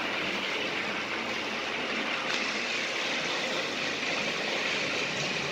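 Battery-powered Trackmaster toy train engines running on plastic track: a steady whir of their small electric motors and wheels, with no change in pace.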